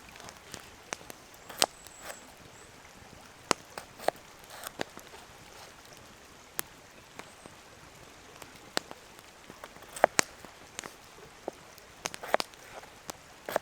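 Rain: large drops tapping one by one, at uneven intervals, onto a surface over a steady hiss of lighter rain.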